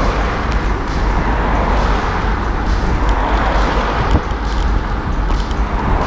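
Road traffic passing close by: car tyre and engine noise swelling as each vehicle goes past, near the start and again near the end, over a steady low rumble.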